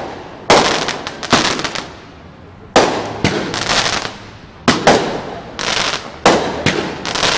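Aerial fireworks shells bursting in quick succession, about nine loud bangs in seven seconds, each trailing off over a second or so.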